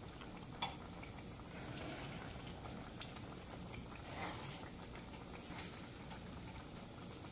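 Scrambled eggs with sausage sizzling in a pan, a soft steady hiss, as they are stirred, with a few light taps and scrapes of the stirring utensil against the pan.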